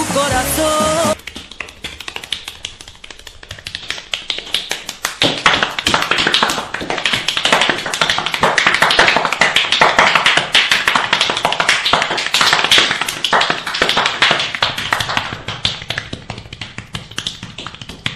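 Hands slapping bare skin in a fast percussive massage: a dense, rapid patter of sharp slaps that grows louder for several seconds in the middle.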